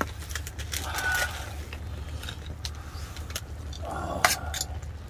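Metal tongs clicking and scraping against a steel bowl and a stew pan as sliced beef is tipped onto ramen, with a sharper run of clinks about four seconds in. A steady low hum lies underneath.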